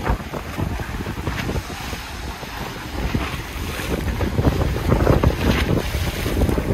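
Strong wind buffeting the microphone in gusts, over small waves washing and splashing against a concrete seawall at high tide, growing louder in the second half.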